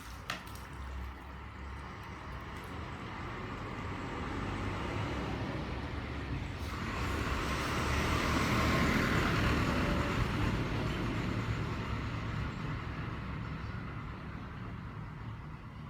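A road vehicle passing by, its rumbling, rushing noise swelling to a peak about nine seconds in and then slowly fading.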